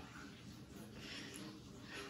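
Quiet room tone with a man's faint breathing.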